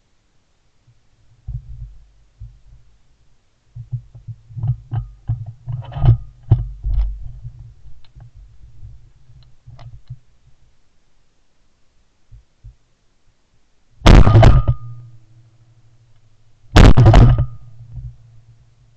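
Two shotgun shots about three seconds apart, each very loud with a short echoing tail. Before them come several seconds of low rumbling and knocking from the gun being handled and swung.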